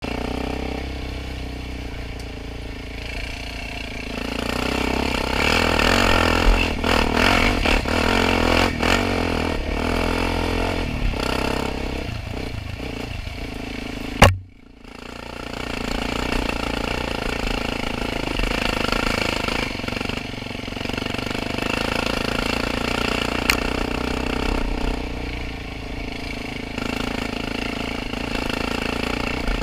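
Quad bike (ATV) engine running and revving as it rides a rough dirt trail, with clatter over bumps. Near the middle a single sharp click is followed by a brief dropout before the engine sound returns.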